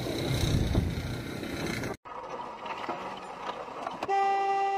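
Loud, rushing street noise that cuts off abruptly about two seconds in, then quieter road noise. Near the end a car horn sounds one steady, sustained honk.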